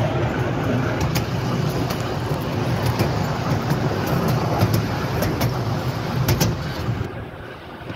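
Miniature railway passenger wagon running along the track: a steady rumble with scattered sharp clicks from the wheels on the rails, getting quieter near the end.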